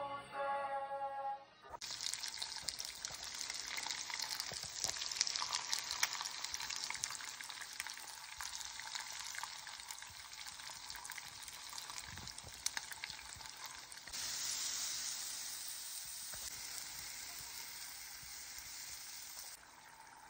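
A couple of seconds of music, then chunks of beef frying in oil in a pan: a dense crackling sizzle. About two-thirds of the way in it turns into a louder, more even hiss for several seconds, then drops away.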